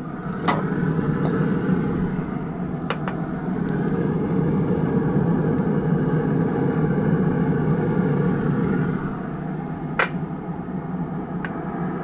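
Pit Boss pellet grill running hot, a steady low rumble from its fan and fire, with a few light clicks as seasoning is tapped from a ramekin into the cast iron skillet.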